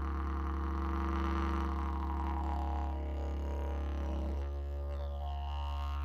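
Didgeridoo drone in the key of D: one steady low tone with a band of overtones above it. Some of the upper overtones fall away about four seconds in.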